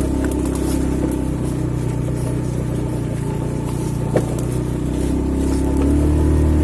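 An engine running steadily at a low, even pitch, a little louder near the end, with one sharp click about four seconds in.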